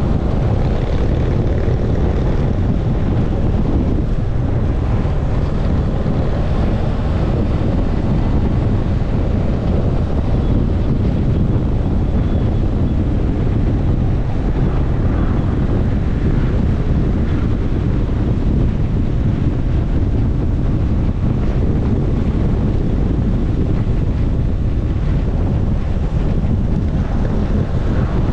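A motorcycle being ridden along a road: the engine runs steadily under a constant low rush of wind buffeting the microphone.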